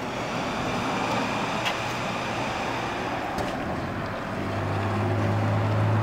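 Steady traffic noise, with a low engine-like hum coming in about four seconds in.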